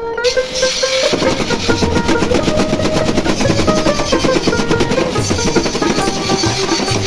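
Background music: a melody over fast, dense drumming that fills out about a second in.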